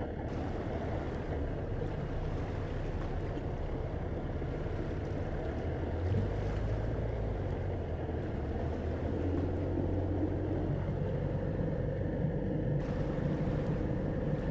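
A boat's motor running steadily, a low drone under wind and water noise. The low hum gets louder about six seconds in.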